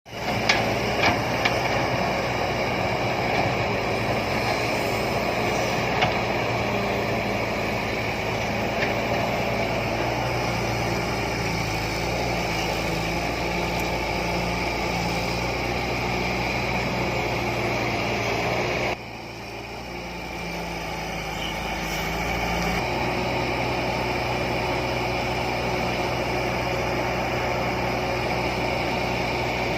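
Heavy machine's engine running steadily, with a few sharp knocks in the first seconds. The sound drops suddenly about two-thirds of the way through and builds back up over a few seconds.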